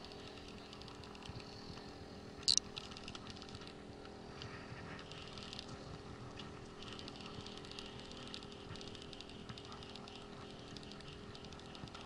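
Baitcasting reel being cranked, a faint fast ticking of its gears as line is wound in with a fish hooked on a tai-rubber rig, over a steady low hum. One brief sharp high-pitched squeak about two and a half seconds in.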